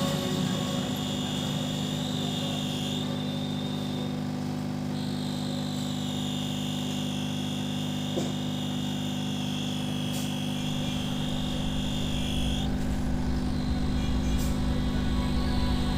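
Hot air rework station blowing steadily on a phone board: a fan hum with a high whine that shifts pitch several times, heating the solder to seat a new SIM connector. A low rumble grows louder about two-thirds of the way through.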